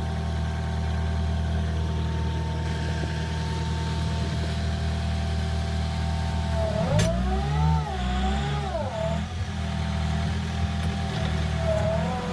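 Diesel engine of a JCB 3DX backhoe loader running steadily. About seven seconds in there is a sharp click, and then the engine revs up and down for a couple of seconds; it revs briefly again near the end.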